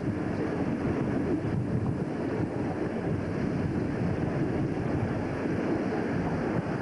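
Steady rumble of a PKP SP32 diesel locomotive and its train running along the track, mixed with wind buffeting a microphone held out of the cab's side window.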